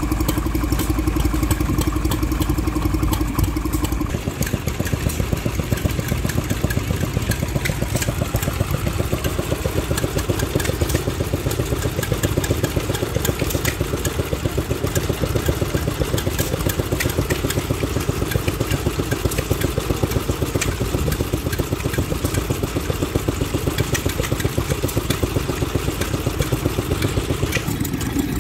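Vintage stationary engines running steadily with an even firing beat: first a Petter-Light 3 HP engine, then, after a change about four seconds in, a 1938 Bernard W1 engine working under load driving a car alternator. Near the end the beat changes again to an engine driving a water pump.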